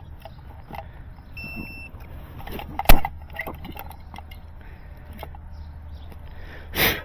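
Fiber splicing work: a short electronic beep from the fusion splicer about a second and a half in, a sharp loud click about three seconds in, and a short hissing burst near the end, over scattered small handling clicks and a low wind rumble.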